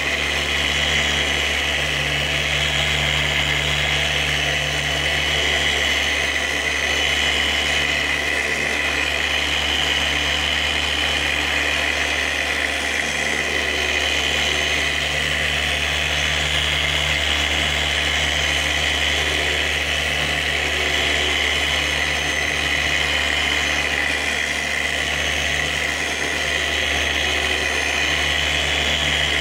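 Electric polisher fitted with a sandpaper disc, running steadily as it wet-sands a yellowed plastic headlight lens.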